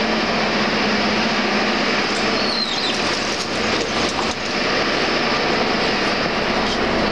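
Russian-built 81-717.4 metro train standing at the platform with its doors open, giving off a steady, even running noise from its on-board equipment. A few short knocks come around the middle.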